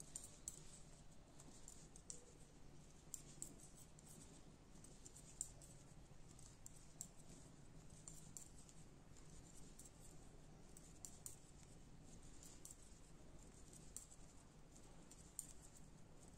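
Knitting needles clicking softly and irregularly, about once or twice a second, as wool is purled stitch by stitch, over a faint low room hum; overall close to silence.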